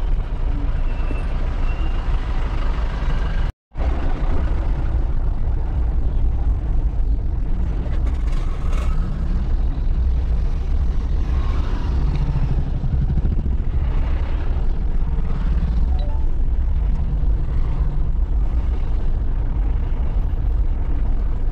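Car driving slowly in traffic, heard from inside the cabin: a steady low rumble of engine and tyre noise. The sound cuts out for a moment about three and a half seconds in.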